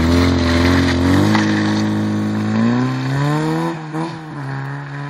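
Zastava 101 hatchback's engine revving hard as the car drifts on snow; the engine note drops about a second in, climbs again around three seconds, dips briefly near four seconds, then fades as the car pulls away.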